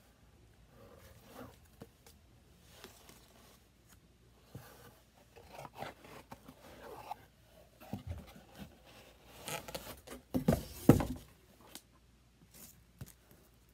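Cardboard and paper rustling and scraping as a paper-covered package is slid out of a cardboard box and handled, in irregular bursts with the loudest rustling about ten seconds in.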